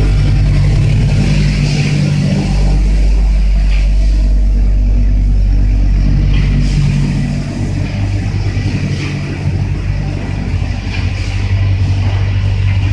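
Frying production line machinery running: a steady, loud, low motor drone with a fainter hiss above it, dropping a little in level about seven seconds in.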